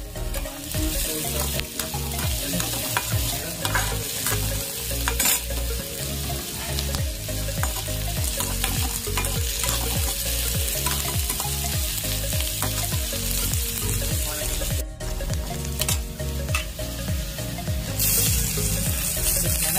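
Chopped onion and garlic sizzling as they fry in hot oil in a steel kadhai, with a metal spatula scraping and stirring against the pan. Near the end the sizzle grows louder as chopped tomatoes go into the oil.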